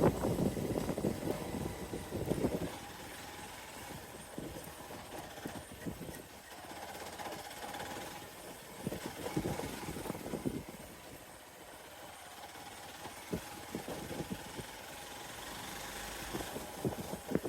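Hero XPulse 200 Pro's single-cylinder engine running, louder for the first couple of seconds and then settling to a lower, even level, with irregular short knocks and clatters scattered throughout.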